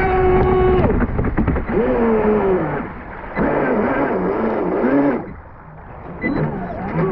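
Pro Boat Sonicwake V2 36 RC boat's 6S brushless motor whining at speed. The whine cuts off about a second in, then rises and falls with repeated throttle changes, drops to a quieter stretch past the halfway point and picks back up near the end.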